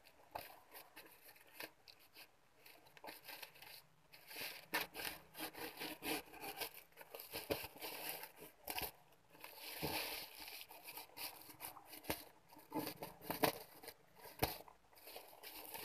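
Parcel packaging being opened and handled by hand: irregular crinkling, rustling and tearing with sharp crackles.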